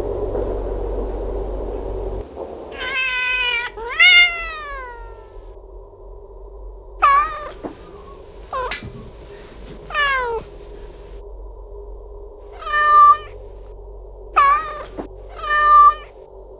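A cat meowing about eight times, short calls with some drawn-out and falling in pitch, after a steady rushing noise in the first two seconds.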